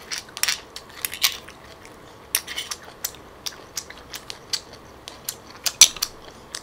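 Metal spoon scraping and clicking against a grilled cockle shell, and shells clinking as they are handled, heard as irregular sharp clicks close to the microphone.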